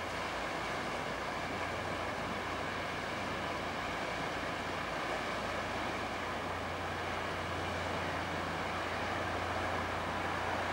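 Passenger ferry under way on the river: its engine gives a steady low drone, over an even background hiss.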